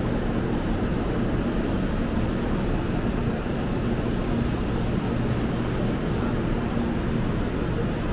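Taiwan High Speed Rail 700T train pulling into the platform behind the screen doors, a steady rushing rumble of the moving train with a faint low hum.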